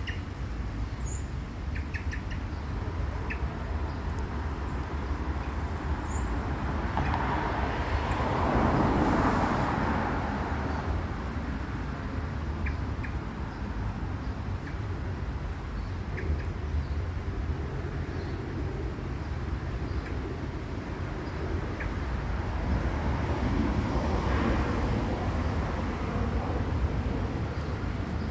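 Steady outdoor rumble of road traffic that swells twice, about nine seconds in and again near the end, like vehicles passing. A few faint, short bird chirps sound over it.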